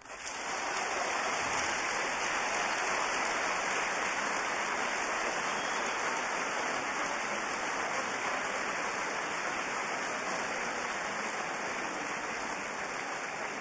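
Audience applause that starts at once and holds steady, easing off a little near the end.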